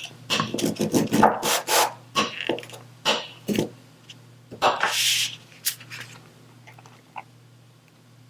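Diamond painting materials being handled close up: a quick run of taps, clicks and rubs, then a longer crinkly rasp about five seconds in, and a few faint ticks after.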